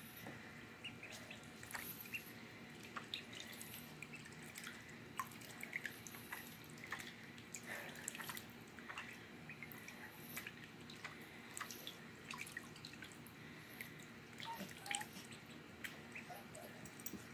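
Ducklings paddling and dabbling in shallow water in a plastic tub: many small, scattered splashes and drips.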